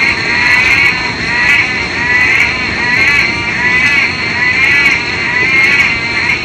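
A loud chorus of frogs calling, with overlapping wavering calls repeating about twice a second over a steady high drone.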